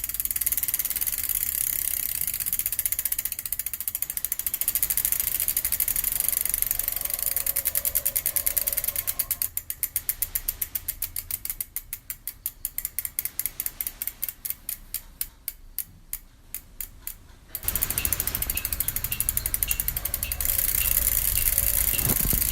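Rapid mechanical ratchet-like clicking in a noise composition made without real instruments. About ten seconds in, the clicks thin into a train of separate sharp clicks that stops abruptly, and a dense, rumbling noise texture returns.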